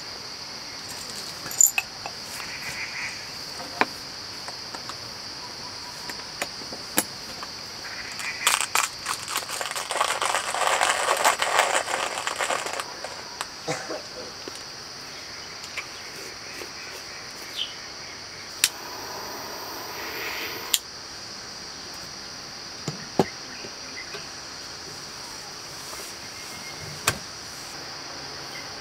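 Steady high-pitched insect chorus, with scattered clicks and knocks over it. A louder burst of noise about nine to thirteen seconds in, and a shorter one around twenty seconds.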